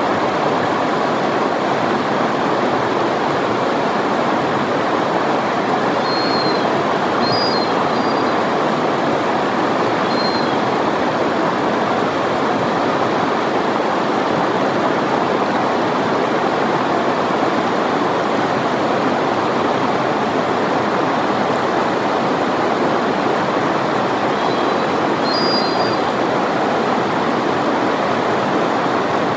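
Steady rushing of river water, with a few faint short high chirps about six, seven and a half, ten and twenty-five seconds in.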